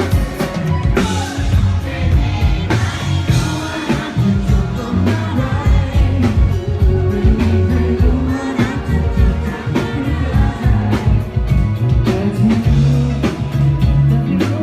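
Thai pop ballad with a singing voice over a drum kit, bass and a steady beat.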